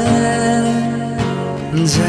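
A Hindi romantic film song plays with sustained notes between sung lines, and two short percussive hits about a second in and near the end.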